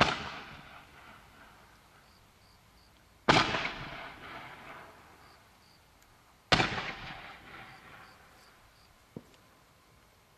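48 mm gold titanium willow mine candle firing three shots about three seconds apart, each a sharp bang whose noise fades away over a second or two. A faint click about nine seconds in.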